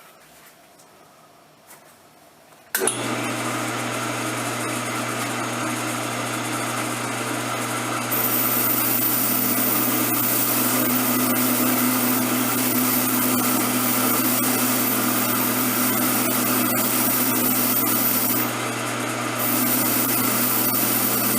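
Power-driven wire wheel switched on about three seconds in and running steadily with a low motor hum, its scratching hiss growing louder from about eight seconds as the wire brush scours the rusty steel of an old mortising chisel. The scratching eases briefly near the end, then picks up again.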